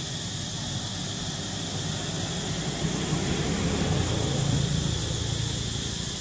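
A passing motor engine's low hum swells and then fades over a steady high drone of insects.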